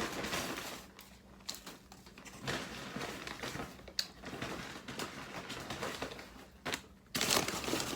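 Food wrappers and packaging rustling and crinkling as they are rummaged through, with a couple of sharp clicks and a louder rustle near the end.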